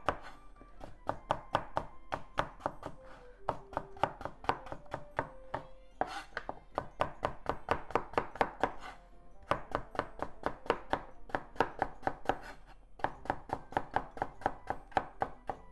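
Chef's knife slicing a cucumber thinly on a wooden cutting board: quick, even knocks of the blade on the board, about five a second, in runs broken by short pauses.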